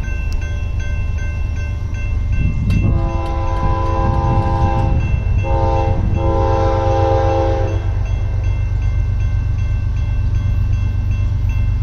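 CSX freight locomotive's multi-chime air horn sounding three blasts, long, short, long, as the train approaches. A steady low rumble runs underneath, with the faint ringing of a grade-crossing bell.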